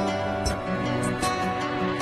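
Background music with held instrumental notes.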